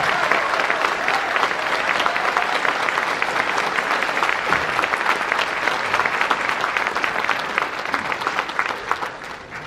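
A large concert audience applauding, dense steady clapping that dies away near the end.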